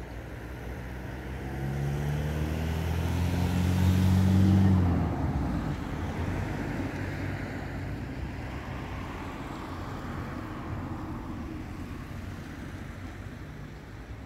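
A car driving past: its engine note climbs and grows louder as it approaches, loudest about four to five seconds in, then its road noise fades away slowly.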